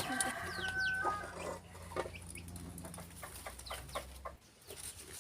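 Chickens clucking, a series of short, scattered calls.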